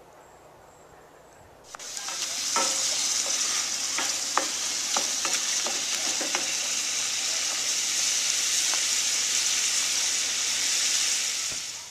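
Shrimp and sliced mushrooms sizzling in a frying pan, with a wooden spoon clicking and scraping against the pan as they are stirred. The sizzle starts suddenly about two seconds in and stops just before the end.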